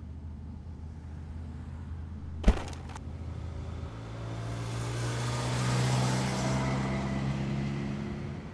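Motor vehicle engine running with a steady low hum, broken by one sharp click. Then the engine drone rises in pitch and the engine and road noise swell over a few seconds before easing off.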